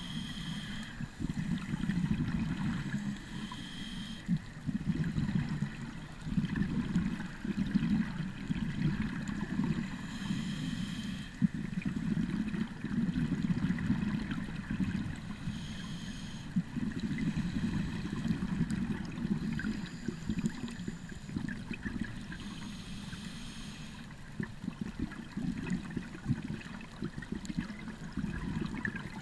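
Scuba diver breathing through a regulator underwater: exhaled bubbles come in noisy swells every few seconds, with a brief hiss on some breaths, muffled through a GoPro's waterproof housing.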